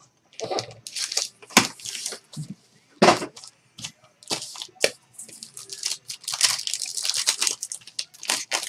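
Foil trading-card pack crinkling and being torn open by hand, among rustles and a few sharp clicks of packs and the cardboard box insert being handled. The crinkling grows denser in the last few seconds.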